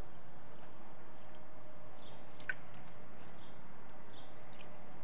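Acid concrete etching solution pouring from a watering can onto a concrete pad and fizzing as it reacts with the concrete, a steady hiss, with a few faint high chirps over it.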